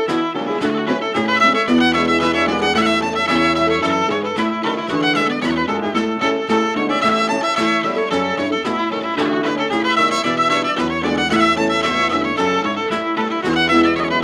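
Cape Breton fiddle playing a quick hornpipe in a steady stream of short notes, from an early-1960s LP recording. Low bass notes of an accompanying instrument sound underneath in stretches.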